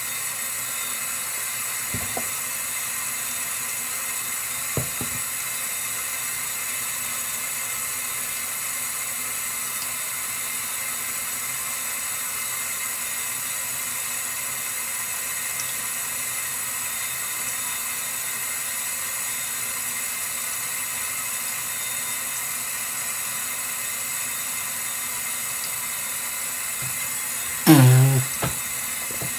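A steady hiss with faint high whistling tones running under everything, broken only by two soft clicks in the first few seconds and a short vocal sound near the end.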